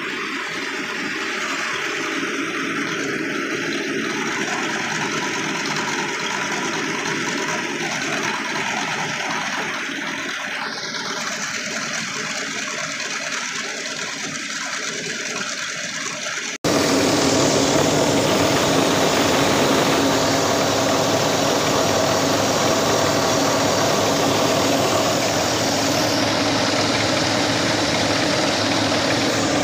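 Tractor-powered mini rice mill running steadily while milling paddy, with the hiss of rice grains streaming from its outlet over the machine's rumble. A little past halfway the sound jumps suddenly and becomes louder, with a steadier engine drone.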